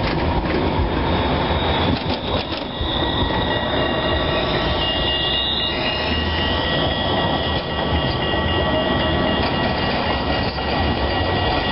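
Trams rolling past close by on embedded street track, a steady rumble of wheels on rail with thin, high, steady wheel squeal that is strongest around the middle.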